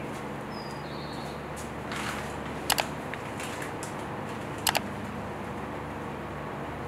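Steady low electrical-sounding hum, with two sharp double clicks about two seconds apart near the middle.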